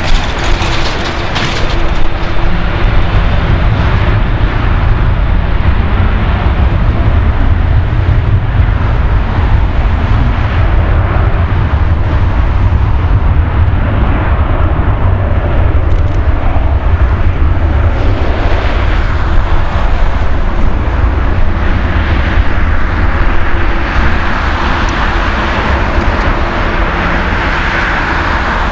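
Boeing 787-8 Dreamliner's GEnx turbofan engines running at low thrust as the airliner taxis slowly onto the runway: a loud, steady rumble with a faint steady hum.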